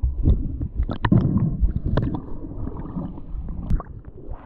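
Underwater sound picked up by a camera held by a diver: a heavy, muffled low rumble with gurgling water and scattered clicks and knocks as the crab drop net is handled, easing off near the end as the camera comes up to the surface.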